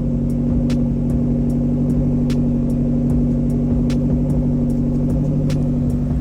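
1990 Toyota Celica GT's four-cylinder engine running at a steady raised idle, which the owner puts down to the new accelerator cable being adjusted way too tight. Sharp ticks come about two or three times a second over the engine.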